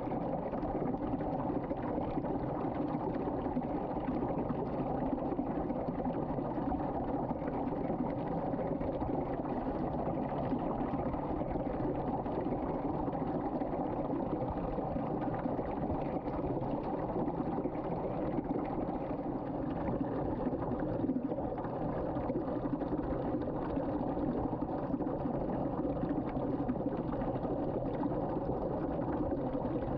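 Water swirling in a vortex and draining down a sink drain, a steady unbroken rush of churning water.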